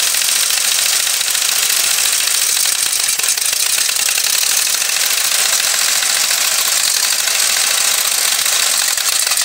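Small single-cylinder air-cooled engine running steadily and loudly, cutting off suddenly at the very end as the spark plug lead is pulled off.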